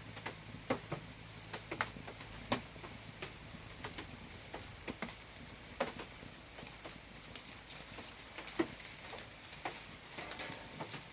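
Wood fire crackling in a fireplace: irregular sharp pops and snaps, a few louder than the rest, over a soft steady hiss.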